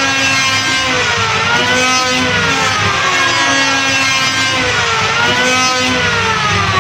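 Electric wood planer running loud, its motor whine sliding slowly down in pitch and then quickly climbing back up, twice.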